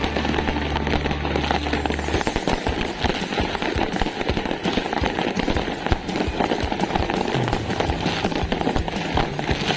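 Fireworks going off in a dense, continuous crackle of pops and bangs. A low steady hum sits under them for about the first two seconds.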